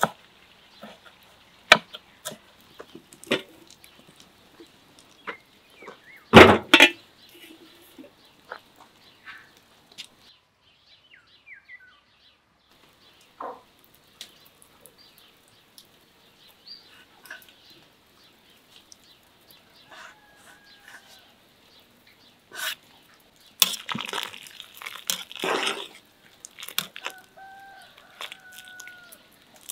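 Knife chopping fresh herbs on a wooden cutting board: a run of light taps with one louder knock. Later a metal skimmer stirs dumpling soup in a steel pot, with scraping and sloshing, and a chicken calls twice in the background.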